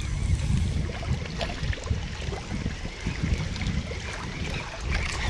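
Wind buffeting the microphone, an uneven low rumble, with a few faint light ticks over it.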